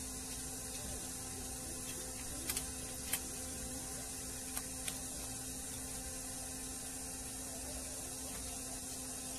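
A handful of light, sharp clicks as multimeter test leads are handled over the circuit board, over steady hiss and a faint steady hum.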